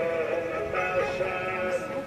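Devotional singing with long held, slightly wavering notes.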